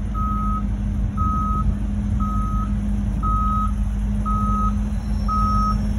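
School bus reversing: its back-up alarm sounds a single-pitched beep about once a second, six times, over the steady running of the bus engine.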